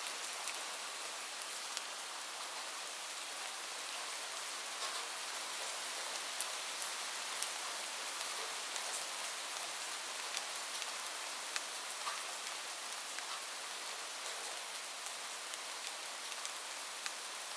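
Light rain falling steadily, an even hiss with scattered individual drops ticking on a surface.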